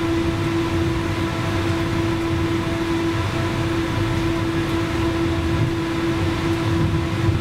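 71-911EM 'Lvyonok' tram running slowly on its rails, heard from inside: a steady electrical hum over a low, uneven rolling rumble.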